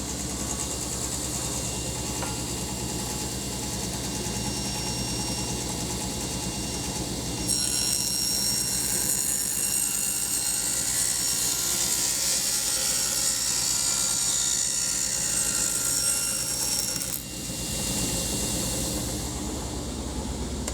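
Table saw running: the motor and blade spin freely, then for about ten seconds in the middle the blade cuts a shallow dado into a wooden panel, a louder, higher whine that stops abruptly as the cut ends, leaving the saw spinning freely again.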